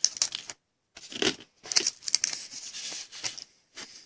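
A 2016 Panini Phoenix football card pack's wrapper being torn open and crinkled, in a series of short rustling bursts with a brief gap about half a second in.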